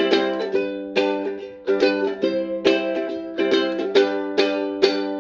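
Ukulele strummed in a steady rhythm, about two to three strums a second, as the opening chords of a children's song.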